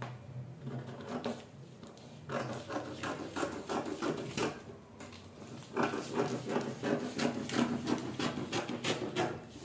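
Scissors snipping through a brown paper pattern in quick runs of short cuts: one run about two seconds in, and a longer one after a brief pause near the middle.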